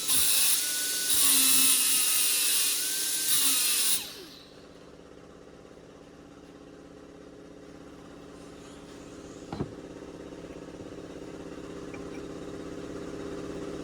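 A power tool runs with a loud whine that wavers in pitch, then stops suddenly about four seconds in. A quieter steady mechanical hum follows, growing slowly louder, with a single knock about ten seconds in.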